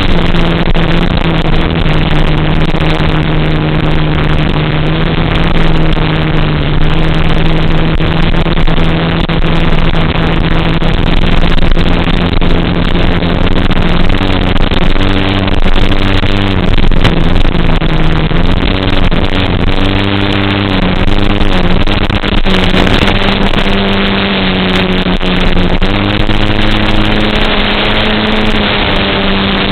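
FPV quadcopter's electric motors and propellers buzzing in flight, the pitch shifting up and down as the throttle changes.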